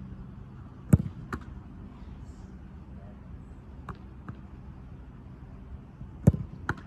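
A football kicked hard twice, about five seconds apart, each strike followed less than half a second later by a softer thud as the goalkeeper catches the ball in her gloves. A steady low hum lies underneath.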